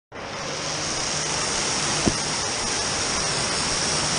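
Steady rushing of water from the sprays and pours of an indoor water play structure, with one short knock about two seconds in.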